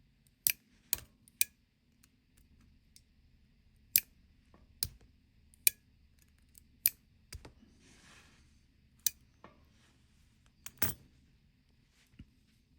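Small metal tools clicking and tapping on a watch case and its button parts as the push-button C-clips and washers are worked out. There are about ten sharp, irregular clicks, with a brief soft rustle about eight seconds in.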